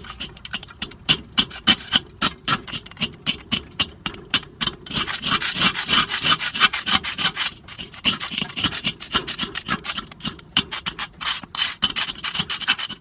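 A flat piece of wood scraping ash and crusted residue off the enamelled steel bottom of a Weber charcoal kettle grill bowl, in quick repeated strokes that run together into one continuous scrape for a couple of seconds in the middle.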